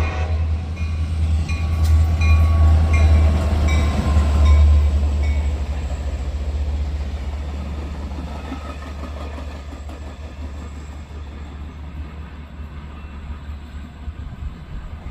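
CSX track geometry train passing: a diesel locomotive's low rumble and the rolling of wheels on rail, loud for the first few seconds and then fading steadily as the train moves away.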